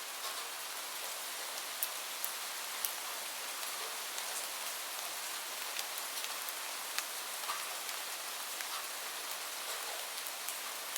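Steady rain falling, an even hiss with many scattered individual drop ticks.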